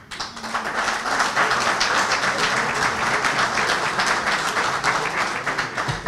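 Audience applauding: many hands clapping, swelling over the first second and then holding steady.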